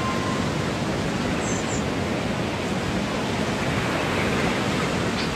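A steady, loud wash of noise with no notes or beat, used as the closing effect of an electronic beat. The last synth note fades just as it starts.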